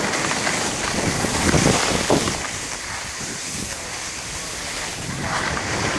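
Skis hissing and scraping over packed snow, with wind rushing over the microphone of a moving camera. Louder in the first two seconds, easing off in the middle, and rising again near the end.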